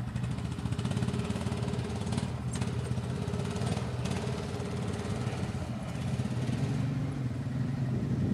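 ATV engines running at low speed as the quads ride along a dirt trail, a steady engine drone with no revving.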